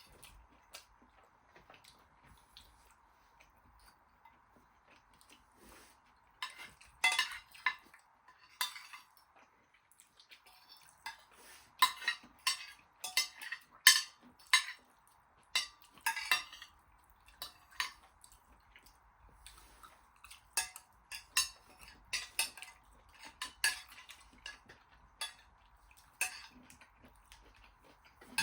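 Metal cutlery clinking and scraping against plates during eating: irregular sharp clicks and scrapes, sparse at first and then coming thick and fast from about seven seconds in.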